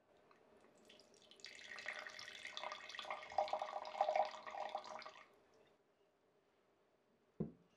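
Red wine poured from a glass bottle into an empty wine glass, splashing for about four seconds and loudest midway through the pour. A single thump near the end.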